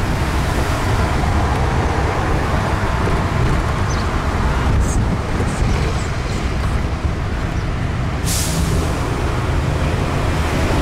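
Open-top double-decker tour bus driving along a road, heard from its upper deck: a steady engine and road rumble. A short hiss comes about eight seconds in.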